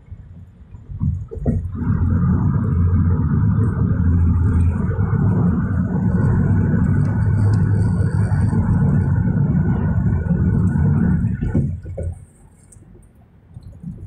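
Loud, steady road rumble inside a moving car on the freeway. It starts with a couple of jolts about a second in and cuts off suddenly a couple of seconds before the end.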